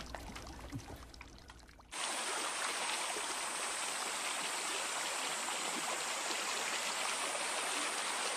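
Water running steadily in a channel, starting abruptly about two seconds in after a quieter, fading stretch.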